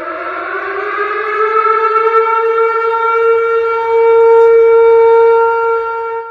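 Tornado warning siren winding up: its wail rises in pitch over the first couple of seconds, then holds a steady, loud tone, and dies away in level near the end.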